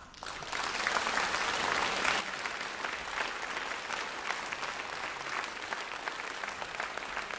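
Audience applauding, breaking out suddenly and loudest in the first two seconds, then carrying on as steady clapping.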